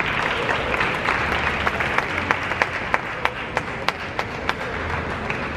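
Arena crowd applauding, with many scattered sharp clicks over the steady clapping noise.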